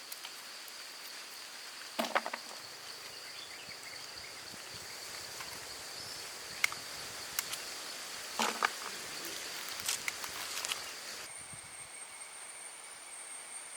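Insects droning on one steady high note, with scattered clicks and knocks. About eleven seconds in, the drone cuts off abruptly and a higher-pitched insect drone takes over.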